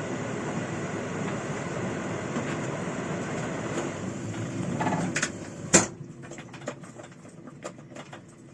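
Steady rumble of a running harvest machine, then a single loud knock about six seconds in. After the knock the sound drops sharply and only scattered light clicks remain.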